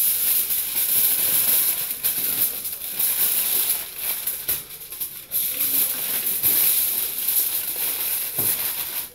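Aluminium foil crinkling and crackling as it is folded and crimped by hand around a piece of meat, a steady rustling hiss with short breaks.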